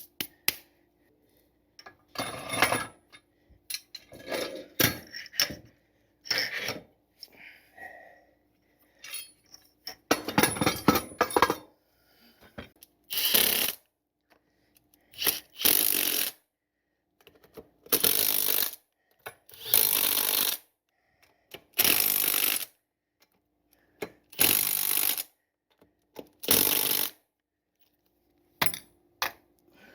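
Power tool run in repeated short bursts, each about a second long and roughly two seconds apart, driving in the bolts that mount a winch. Before that come irregular knocks and clatter of parts being handled.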